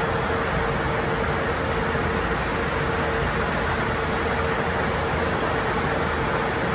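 Steady running of water treatment plant machinery: a constant hum over an even rushing noise, unchanging throughout.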